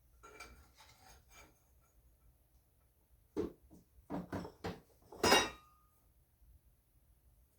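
Light rattling, then a few metal knocks and clanks, the loudest about five seconds in with a brief ring, as steel bracket stock and tools are handled.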